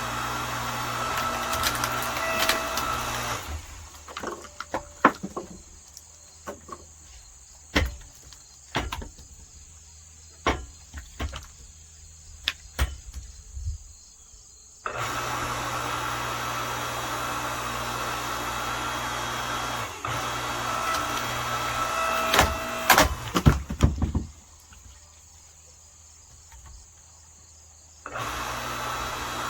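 Earthquake 5-ton electric log splitter's motor running with a steady hum and whine. It stops about three seconds in and starts again near the middle and near the end. While it is off, wooden pieces knock and clunk. A burst of loud sharp cracks and knocks of wood comes during the second run, just before the motor stops.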